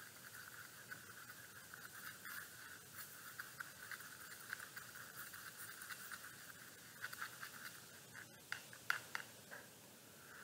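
Faint, steady scratchy swishing of a paintbrush stirring acrylic paint against a plastic palette well, mixing black and white into a dark gray. A few sharper clicks come near the end as the brush knocks against the palette.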